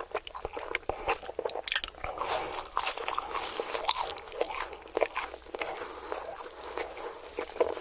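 Close-miked bites and chewing of crispy fried food, with many sharp crunches and crackles one after another.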